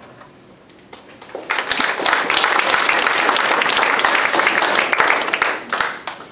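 Audience of schoolchildren applauding: a dense patter of many hands that swells in about a second and a half in, holds steady, and dies away near the end.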